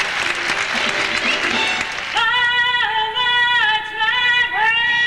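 Audience applause, then about two seconds in a high woman's singing voice comes in over it, holding long sustained notes with vibrato near the end.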